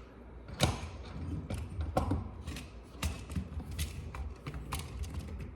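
Scattered small clicks and taps of an HDB68 launcher's parts being handled while a new detent is worked into place. The detent won't seat; it seems to be binding.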